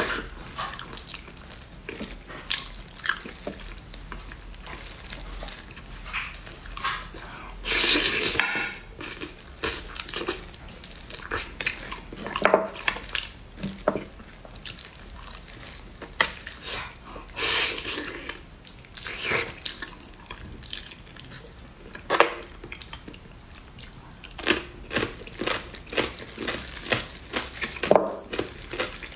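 Wet mouth sounds of eating braised pig's trotters: chewing and smacking on sticky skin and meat, heard as irregular clicks and short bursts, with gloved hands tearing the meat apart.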